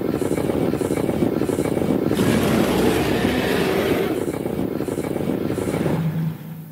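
Cartoon sound effect of Godzilla's atomic breath beam firing: a loud, sustained rumbling rush that gets brighter about two seconds in and dies away near the end.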